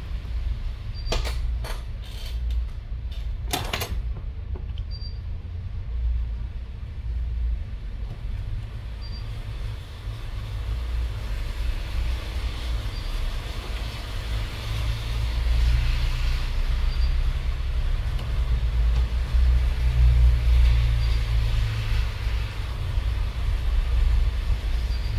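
A steady low rumble, with a few sharp clicks in the first few seconds.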